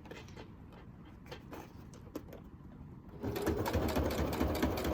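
Sewing machine starting up about three seconds in and running at a steady, rapid stitching rhythm along the side of a faux leather envelope, after a few faint handling clicks.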